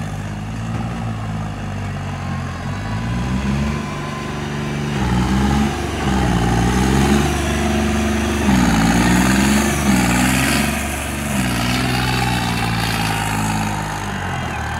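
Modified stunt tractor's engine revving up and down again and again as it spins on its rear wheels with the front end lifted, the pitch rising and falling every second or two.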